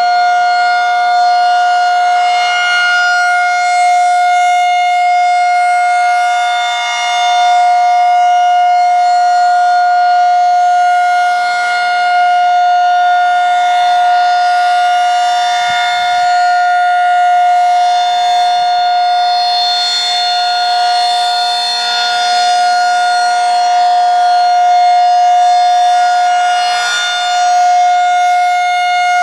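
Federal 2001-SRN electromechanical rotating outdoor warning siren sounding a steady, unchanging tone during a test, its loudness swelling and fading gently every few seconds.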